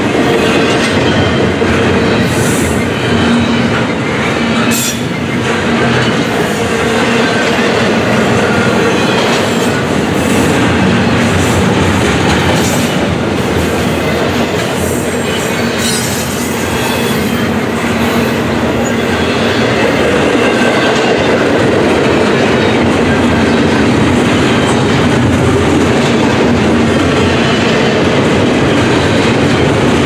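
Double-stack intermodal train's well cars rolling past, a loud steady rumble of steel wheels on rail with clickety-clack over the joints. Brief high wheel squeals cut in a few times.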